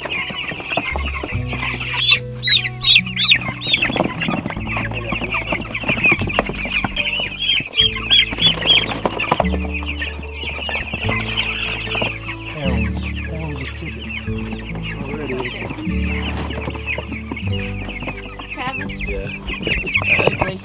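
A crowd of young meat chickens peeping constantly, packed together in a plastic tote, with louder bursts of peeping about two seconds in and again about eight seconds in. Background music with sustained low notes plays underneath.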